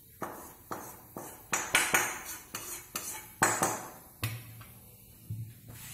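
Metal spoon scraping and knocking against a frying pan and a steel bowl as dry-roasted rice flour is scraped out. It is a quick run of clinks and scrapes that thins out after about four seconds.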